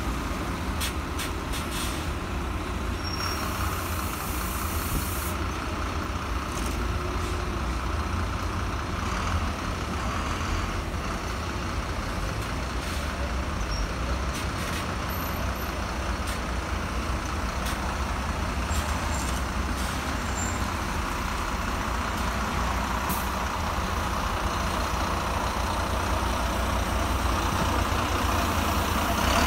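Diesel engine of a double-decker bus idling with a steady low rumble, with a hiss of released air from its pneumatics about three seconds in. Near the end it pulls away and grows louder as it passes.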